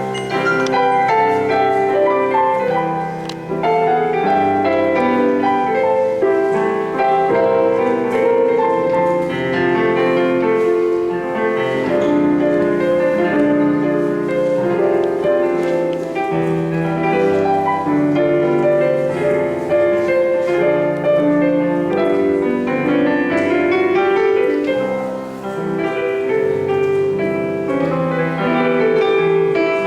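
Live instrumental music: a tune and chords on keyboard instruments, the notes mostly held rather than struck and fading.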